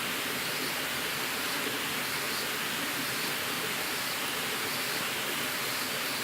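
Steady rushing of running water, an even noise at constant level with no crackle or knock standing out.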